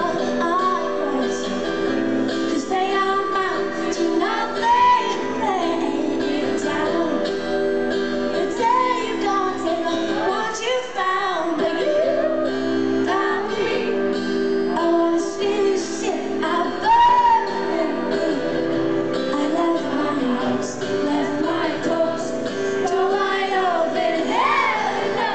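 Live pop music from a concert: a female lead vocal singing a gliding melody over sustained keyboard chords and a band.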